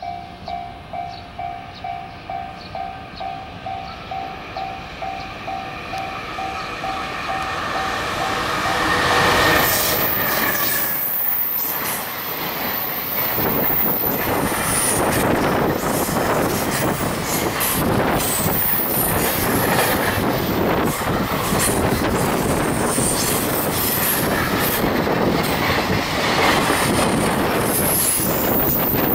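A level-crossing alarm dings about twice a second as a JR Freight EF210 electric locomotive approaches. About nine seconds in, the locomotive passes close by, and a long rake of container wagons follows: steady rolling noise with wheels clattering over rail joints and occasional high squeals.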